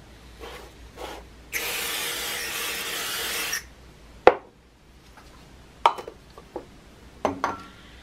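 Aerosol can of superglue activator spraying one steady hiss for about two seconds, followed by a sharp knock and a few lighter handling clicks.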